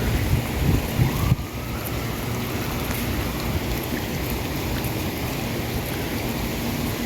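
Heavy rain pouring down steadily in a storm, with wind rumbling on the microphone for the first second or so before it stops abruptly.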